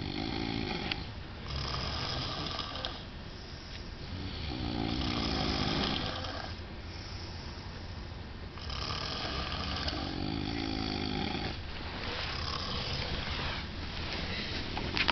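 A man snoring loudly and rhythmically, about five rasping breaths, each a second or more long with short pauses between.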